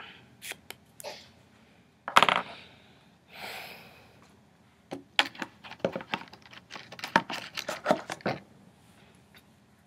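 Makeup containers and tools being handled and set down: scattered clicks and taps, a louder knock about two seconds in, and a quick run of clicks from about five to eight seconds.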